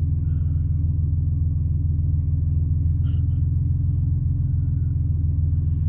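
Steady low road and engine rumble inside a moving vehicle's cabin, with a faint click about three seconds in.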